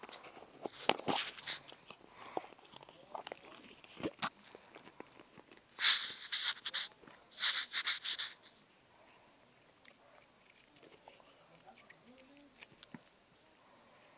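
Green slime being squeezed and kneaded by hand, making wet squelching clicks and pops. The loudest squishes come in a cluster about six seconds in and another around seven and a half seconds, then it goes quiet with only faint clicks.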